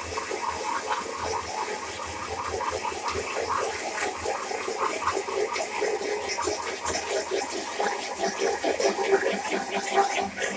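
Electric blender running, churning eggs with oil poured in a thin stream to emulsify them into mayonnaise.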